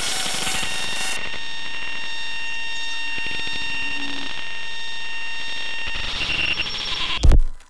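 Steady electronic drone of several held tones over a hiss, the hiss thinning about a second in. Near the end comes a loud short burst, then the sound cuts off abruptly.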